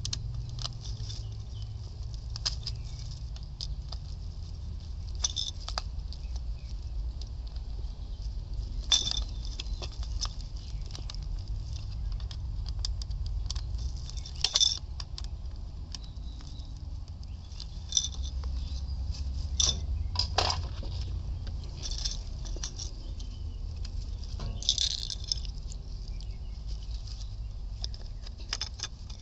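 Irregular small clicks, taps and light rattles of hand tools and plug parts being handled while a replacement hot tub power plug is wired in, over a steady low rumble.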